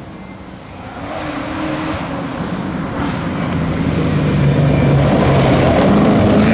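V8 Holden Commodore rally car approaching hard on a gravel road, its engine note growing steadily louder and peaking near the end as it slides past, with the rush of tyres on loose gravel.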